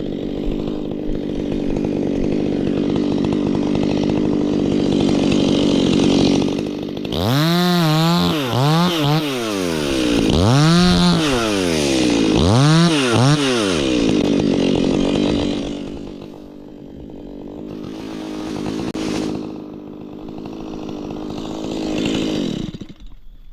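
A chainsaw runs at a steady speed, then is revved up and down about four times. It drops back to a lower, uneven running and cuts off near the end.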